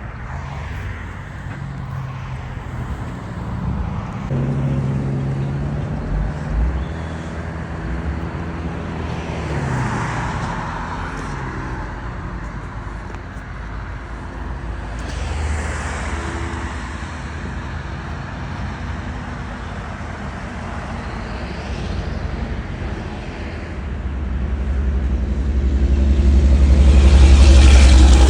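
Motor vehicles running on a road, the sound swelling and fading several times as they pass. A louder, deeper vehicle rumble builds near the end and is the loudest moment.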